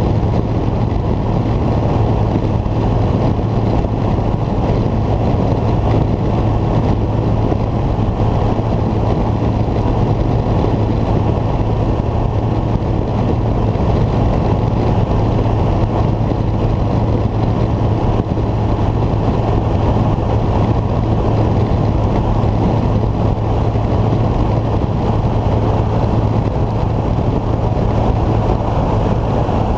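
Deutz-Fahr Agrotron 115 MK3 tractor's 4.8-litre Deutz BF6M 1012 EC six-cylinder diesel running steadily at road speed, with a constant low drone.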